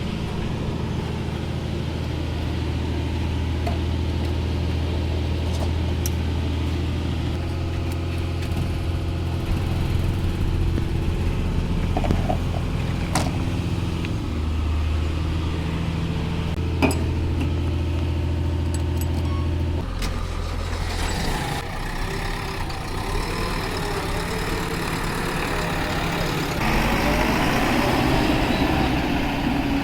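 Diesel engine of a JCB 3DX backhoe loader running steadily under work, its pitch shifting now and then, with a few sharp clanks. For the last third the sound turns rougher and louder, with a pitch that rises and falls.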